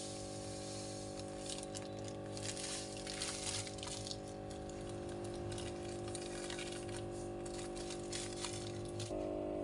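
Background music holding a long steady chord that changes to a new chord near the end, with scattered rustling and handling noises over it.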